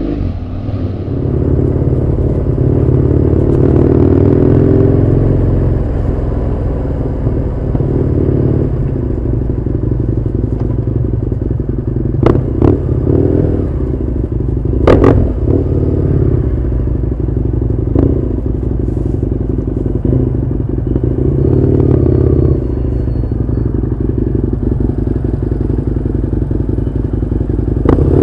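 Husqvarna Nuda 900R's parallel-twin engine running on the move, revs swelling and easing several times. A few sharp cracks stand out around the middle.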